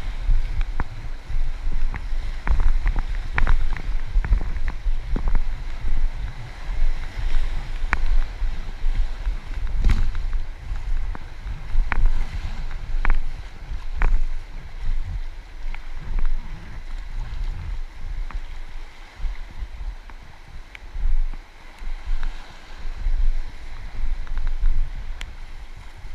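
River water rushing past an inflatable kayak, with a gusty rumble of wind on the microphone and scattered sharp ticks and splashes.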